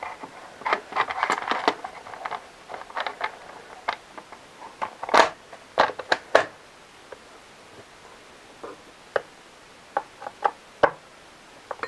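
Plastic top cover being pressed back onto a Jonsered chainsaw: irregular clicks, scrapes and knocks of plastic on plastic, loudest around the middle, then scattered clicks as the cover's fastener is turned with a tool.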